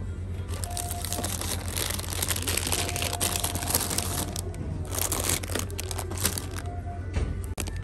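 Crinkling, crackling noise, dense for about four seconds, then coming in short bursts.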